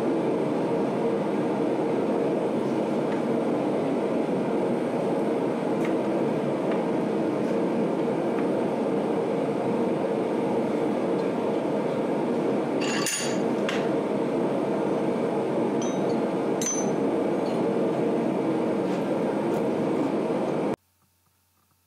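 A steady, even rushing roar of shop noise, with light metal clinks about 13 seconds in and again around 16 to 17 seconds. It cuts off abruptly near the end.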